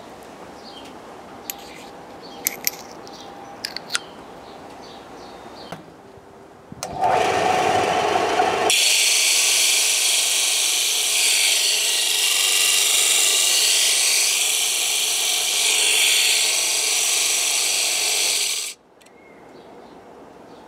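A benchtop disc sander starts up about seven seconds in. A steel valve bucket tappet is then pressed against the spinning sanding disc for about ten seconds, making a loud, steady metal-grinding rasp that stops abruptly. Metal is being ground off the tappet to set the valve clearance. Before the sander starts there are a few light clicks as the part is handled.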